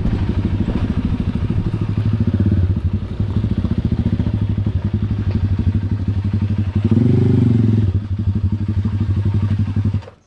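Motorcycle engine running as it is ridden slowly, heard from on the bike itself. About seven seconds in, the revs rise briefly. The sound cuts off suddenly near the end.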